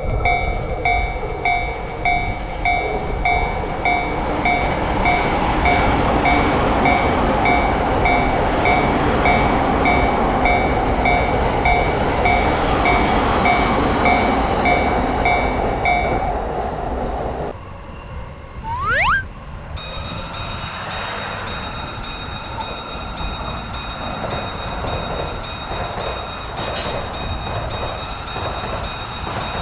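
Railroad crossing warning bell dinging about twice a second while a train runs past; the bell stops about 16 seconds in. After a short rising whistle-like sound, a steadier train sound follows.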